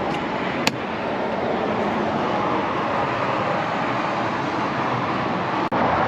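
Steady road traffic noise, with a single sharp click about a second in and a brief dropout near the end.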